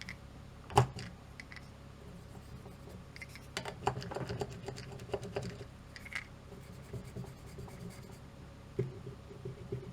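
Light scratching and tapping of soldering tools on a small circuit board while its pads are tinned, with a sharp tap a little under a second in and another near the end.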